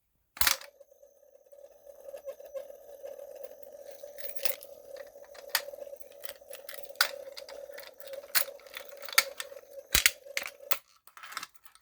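A loud click, then a steady electric buzz for about ten seconds with scattered ticks and clicks, ending just after another loud click near the end. This is the fire alarm circuit energised while its broken Wheelock bell fails to ring.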